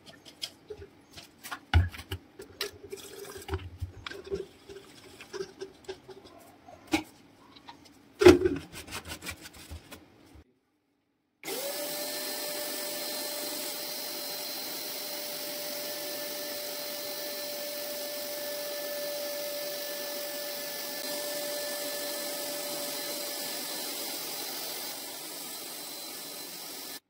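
Clicks and knocks as red paint is poured into a plastic spray-gun paint cup and the cup is handled. Then, after a brief break, a paint spray gun runs steadily while spraying, a hiss with a steady whine that eases slightly near the end.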